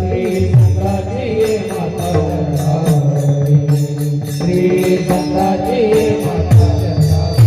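Women singing a Marathi devotional song in a kirtan style, over sustained instrumental accompaniment with a steady beat.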